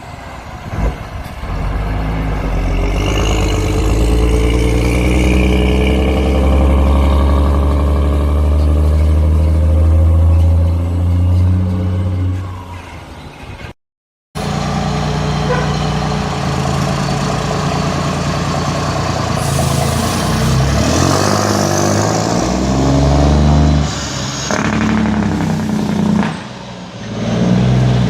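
Heavy International trucks passing with the engine brake on, a loud, low engine rumble. The first fades out near the middle and breaks off in a brief silence. A second truck follows, its engine pitch stepping down and up several times.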